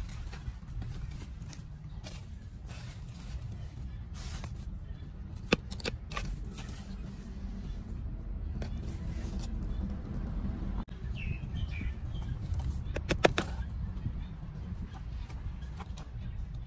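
Hands working and crumbling dry soil in a plastic pot: scratchy rustling with a sharp click about a third of the way through and a quick cluster of clicks later, over a steady low rumble. A bird chirps briefly past the middle.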